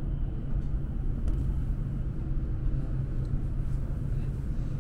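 Steady low rumble of a moving passenger train heard from inside the carriage, with a few faint ticks over it.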